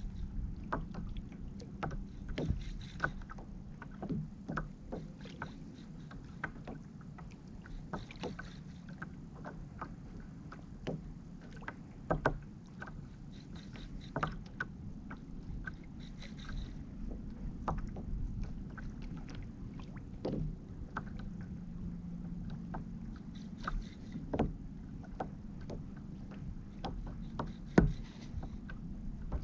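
Small waves lapping and slapping against a fishing kayak's hull over a steady low rumble, with irregular light knocks and clicks.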